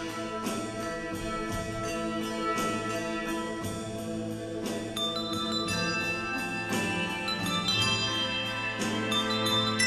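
Handbell ensemble playing: many bells ringing together in sustained, overlapping chords, with fresh notes struck about once a second. A group of higher bells comes in about halfway through.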